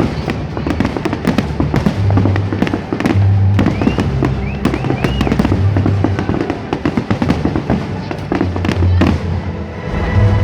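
Fireworks display going off: a dense run of bangs and crackling, with a few brief whistles about four to five seconds in, over music with a pulsing bass.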